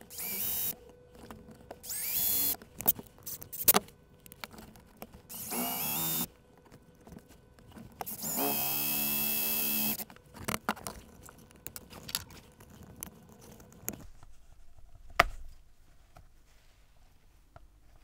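Cordless drill running in four short bursts as it bores into thick vegetable-tanned leather, the longest burst about two seconds near the middle, with clicks and handling sounds between bursts. One sharp click stands out in the quieter last few seconds.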